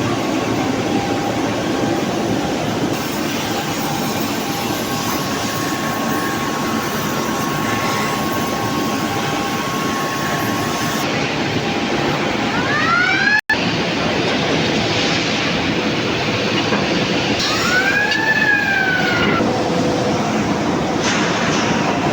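Steady loud industrial din of rolling-mill machinery charging billets into a reheating furnace. A steady tone holds for several seconds in the first half, a high squeal rises just before the sound cuts out for an instant about halfway, and another high squeal rises and falls later on.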